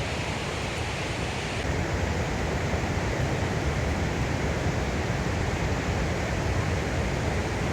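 Steady rush of fast-flowing monsoon water, a stream or waterfall, with no distinct events; the sound shifts slightly about one and a half seconds in.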